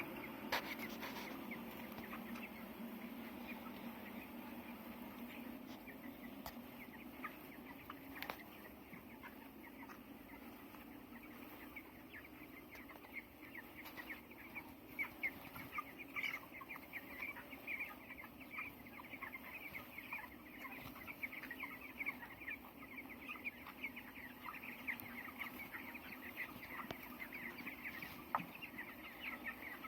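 A shed full of young broiler chickens cheeping and chirping constantly, many short calls overlapping, growing busier about halfway through. A steady low hum sits under the first half and fades away.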